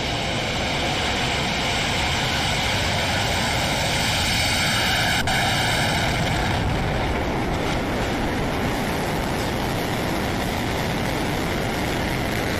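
Firefly Alpha rocket's first-stage kerosene engines firing through ignition and liftoff: a loud, steady rushing rumble, with a thin high ringing over it for the first six seconds or so and one sharp crack about five seconds in.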